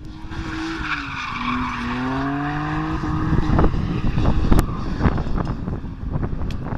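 Drift car's engine revving while it slides, its pitch dipping and then climbing steadily, with tyre noise over it. From about three seconds in, a rapid irregular run of sharp cracks and thumps takes over.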